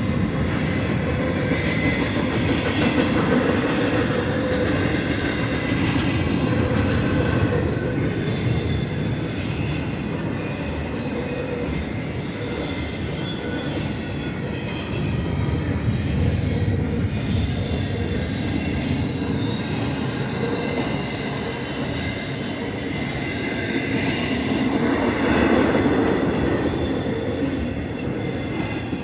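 Intermodal freight cars of a passing train at speed: a continuous rumble and rattle of steel wheels on the rails. Thin high squealing tones from the wheels run over it, and the sound swells and eases as cars go by.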